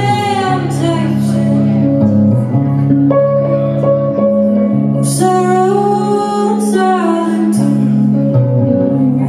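A woman singing a slow folk-country song with long, wavering held notes over sustained electric guitar chords.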